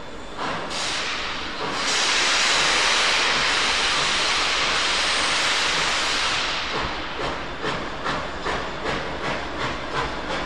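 Ex-SNCF 141R steam locomotive (a 2-8-2) letting off a loud hiss of steam. After about six seconds the hiss fades and regular exhaust chuffs take over, about two to three a second.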